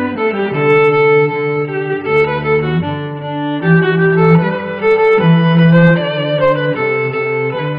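Background music on bowed strings: a violin melody over lower strings, with held notes that change every half second to a second.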